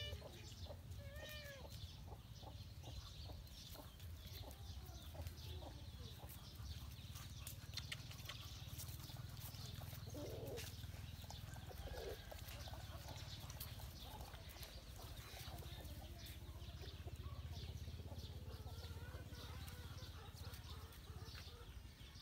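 Quiet farmyard sound: chickens clucking softly now and then over a steady low rumble, with scattered small clicks.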